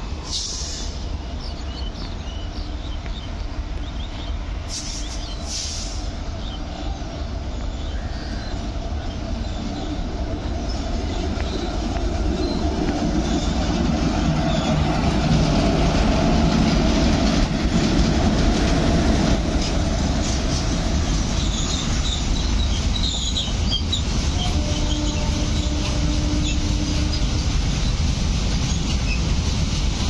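A long freight train passing close by, hauled by two electric locomotives. The rumble swells over about ten seconds as the locomotives go by, then holds steady as the wagons roll past, the wheels clattering and squealing on the rails.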